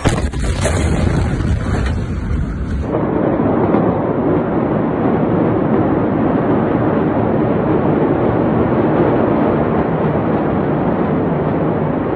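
A few sharp clicks over a dull background, then from about three seconds in a steady, even rumbling noise with no distinct blasts.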